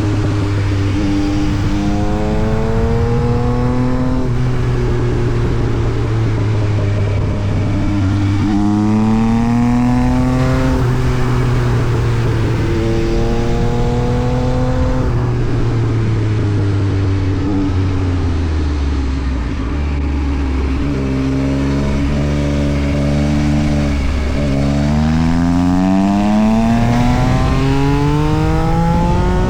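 Yamaha MT-09 SP's three-cylinder engine through an Austin Racing exhaust, revving up several times with steady stretches between. Its pitch climbs, holds and drops again, with a long lower, steadier stretch in the middle.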